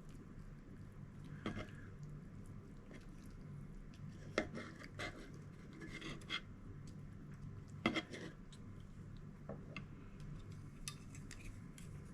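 Eating utensils clinking and knocking against dishes, a few scattered light clicks with the loudest two about four and eight seconds in, over a steady low hum.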